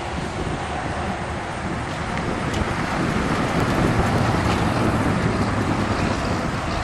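1968 Imperial Crown convertible with its 440 cubic-inch V8 driving past on the road, engine and tyre noise growing louder as it comes up and passes, loudest a few seconds in, then easing slightly as it pulls away.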